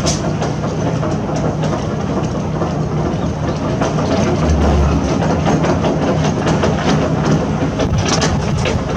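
Diesel engine of heavy construction machinery running steadily, with irregular metallic clanks and knocks over it and a brief deeper rumble about halfway through.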